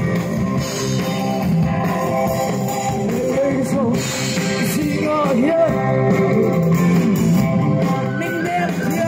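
Live band music: an amplified electric guitar with the band, and a woman singing into a microphone. Her singing comes in about three seconds in.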